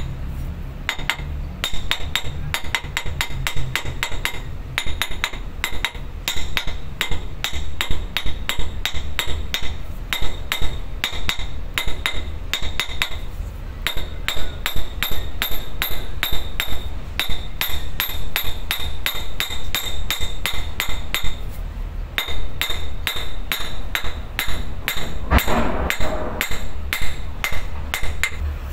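Hammer striking the steel output yoke of a ZF truck transmission, driving it onto the output shaft over a new oil seal. The blows come quickly and keep going, about three a second, each with a metallic ring, and pause briefly twice. A steady low hum runs underneath.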